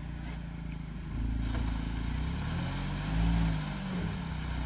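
Mahindra Thar's engine running low, then revving up about a second in, rising and falling and loudest about three seconds in, as the stuck SUV tries to pull out of mud with four-wheel drive engaged.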